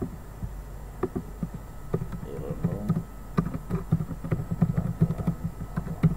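Typing on a computer keyboard: a run of quick, irregular key clicks, sparse at first and denser from about two seconds in, over a low steady hum.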